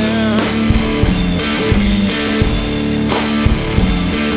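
Rock music played live on guitar and drum kit: an instrumental passage without vocals, with held guitar notes over a steady drum beat.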